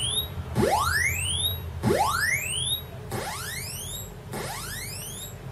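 Commodore 64's 6581 SID sound chip playing SID Bench test tones: a rising pitch sweep that repeats about every one and a quarter seconds, the later sweeps quieter. This is a test pass run to check the sound chip's voices and filter.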